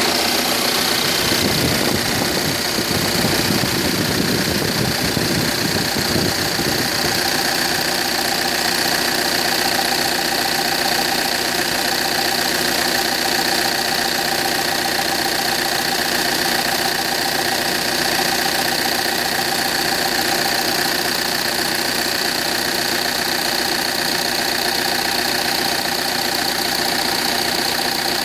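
Audi A6 2.0 TDIe four-cylinder common-rail diesel idling steadily, with a distinct metallic knocking from the area of the common-rail fuel rail.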